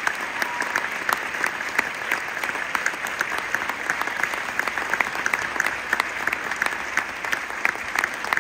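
Audience applauding: dense, steady clapping, with sharper single claps standing out from people close by.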